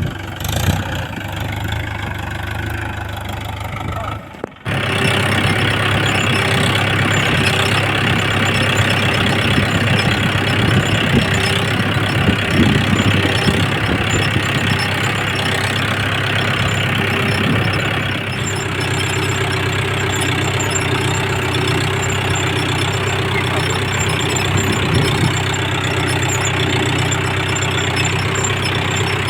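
Mahindra Yuvo 415 DI tractor's four-cylinder diesel engine running steadily while pulling a reversible plough. The sound drops out briefly about four seconds in and comes back louder.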